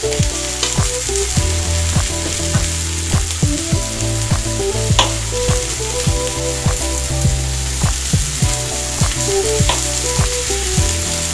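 Chicken breasts frying in butter in a stainless steel pan: a steady sizzle with frequent small pops and spits of fat.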